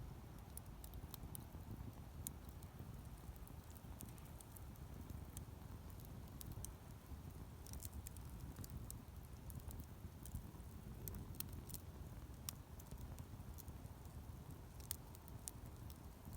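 Wood campfire burning: a low, steady rumble of flame with scattered sharp crackles and pops from the burning wood.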